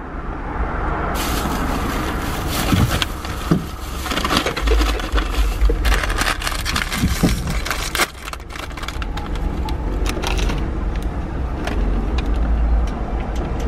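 Paper food bag and plastic bag rustling and crinkling as they are handled, over a low rumble that comes and goes.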